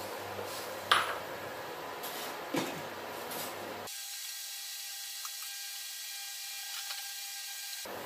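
A glass bowl knocks sharply against a stainless-steel pot as an egg is tipped into the boiling water, then a smaller clack about two and a half seconds in as the pot's glass lid goes on. A steady hiss from the pot on the induction cooktop runs underneath.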